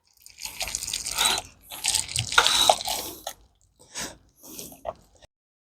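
Crinkling and rustling in irregular bursts with sharp clicks, as parts are handled and worked by hand.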